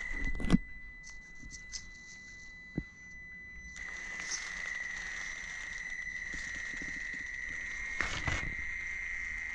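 Traxxas TRX-4M crawler's small brushed motor and drivetrain whining in a steady high tone under load as it climbs a 55-degree carpeted ramp, fainter for a few seconds early on. Brief knocks and scrabbling of tyres and chassis on the carpet come just after the start and again around eight seconds in.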